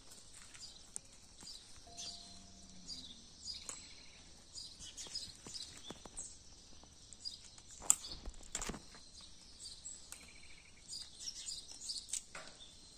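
Birds chirping and calling in quick, repeated short notes over quiet outdoor ambience, with a couple of sharp clicks or knocks about eight seconds in.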